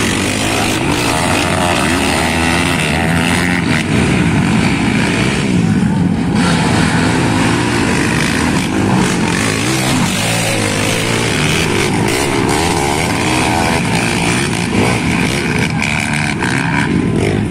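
Racing ATV (quad) engines revving hard, their pitch rising and falling constantly as the riders open and close the throttle.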